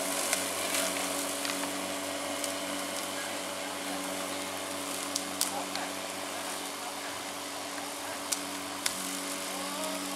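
Corded electric lawn mower running with a steady hum as it is pushed through grass, with a few sharp clicks about halfway through and near the end.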